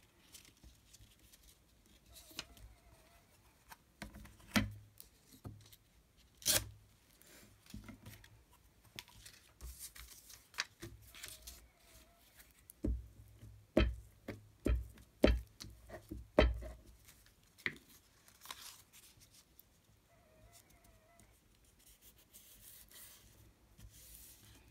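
Paper being torn and cut with scissors, with rustling, scattered sharp clicks and a cluster of louder knocks about halfway through.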